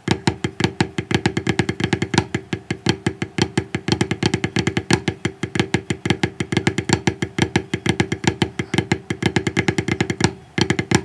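Snare drum played with sticks: a fast, even run of Swiss Army triplets, repeated flam-tap-tap groups, with a short break near the end before the strokes resume.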